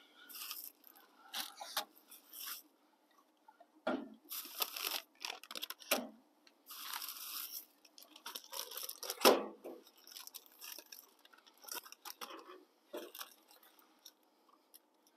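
Plastic food bags crinkling and rustling in short, irregular bursts as they are picked up and handled, with a few knocks among them, the loudest about nine seconds in.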